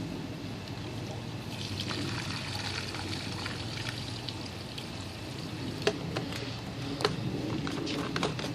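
Motor oil pouring and trickling out of a bag into the engine's oil fill, with a few light clicks in the second half.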